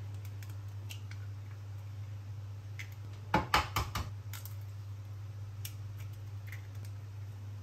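Low steady hum from an induction hob under a small frying pan. About three and a half seconds in, a quick cluster of sharp knocks comes as eggs are cracked and dropped into the pan, with lighter clicks of shell and pan before and after.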